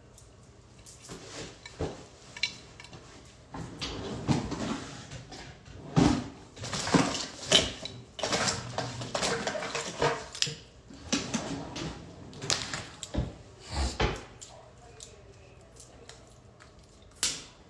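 Handling noises close to a phone's microphone: irregular clicks, knocks and rustling, busiest in the middle, with one last knock near the end.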